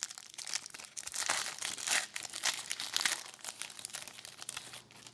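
Crinkling and tearing of a hockey card pack wrapper as it is handled and ripped open, a dense run of irregular crackles that dies away near the end.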